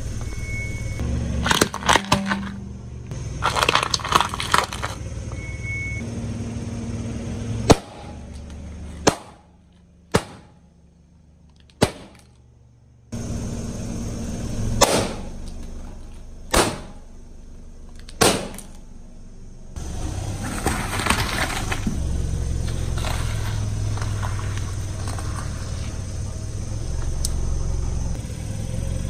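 Objects crushed under a car tyre: bursts of crunching and crackling, and several single sharp cracks, over the low rumble of the car. A quieter stretch in the middle holds only a few isolated cracks.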